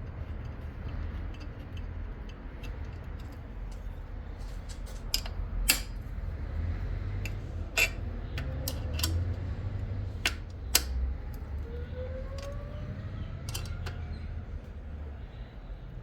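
Small metal clicks and taps from a hand tool and screws as a screw is turned in by hand, about a dozen sharp ticks spread through the middle, over a low steady hum.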